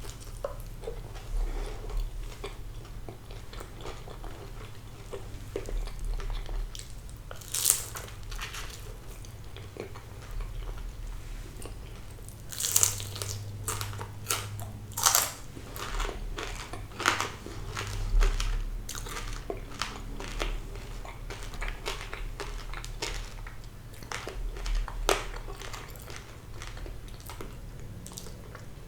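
Close-miked eating of fried sea bass: biting and chewing with crisp crunches, the loudest of them about 8, 13, 15 and 25 seconds in.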